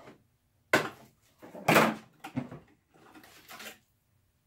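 Plastic packing (zip ties, tape and bubble wrap) crinkling and rustling as it is pulled off the 3D printer's frame, in several short noisy bursts, the loudest a little under two seconds in.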